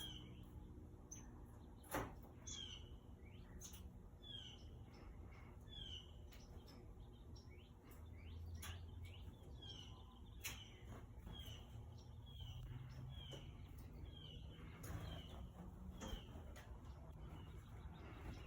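A small bird chirping faintly over and over, short falling chirps about every two-thirds of a second, with a few sharp clicks, the loudest about two seconds in.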